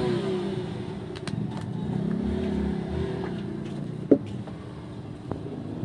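A low motor-vehicle rumble in the background, swelling about two seconds in, under light clicks from a phone's plastic back cover being pried loose at its edge, with one sharp snap about four seconds in.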